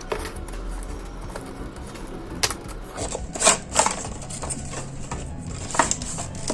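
Earbud retail box and its packaging being handled and opened by hand: a few sharp clicks and taps, the loudest a little past three seconds in, over a faint low hum.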